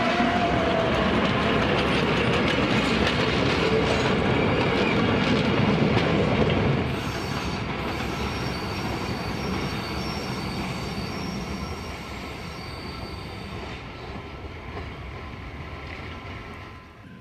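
Rack railway train running close by, with loud wheel and running-gear noise and a squeal from the wheels. About seven seconds in the sound drops to a quieter train running further off, with thin high squealing tones, fading away toward the end.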